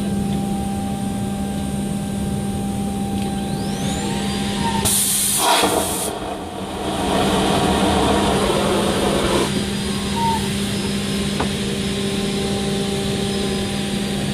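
An aircraft vacuum toilet flushing: a loud rushing hiss about five seconds in, lasting about a second, then a quieter rush of suction for a few seconds. A steady cabin hum runs underneath.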